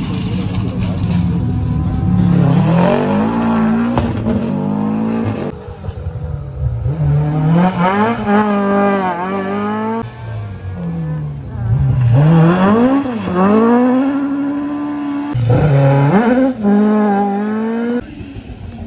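Historic rally car engine revving hard through the gears on a special stage, its pitch climbing and then dropping back at each gear change, several times over.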